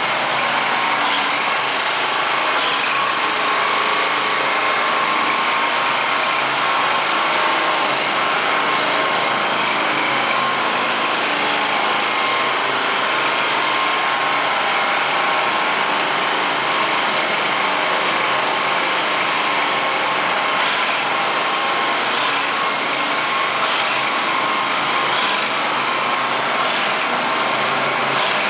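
Small gasoline engine of an airless line-striping machine running steadily as it drives the paint pump. A few short high hisses come now and then, mostly in the second half.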